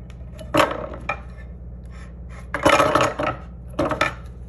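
A faucet deck plate with a plastic rim being picked up, turned and slid across a wooden surface: a short scrape about half a second in, a longer stretch of rubbing a little past the middle, and another short scrape near the end, over a steady low hum.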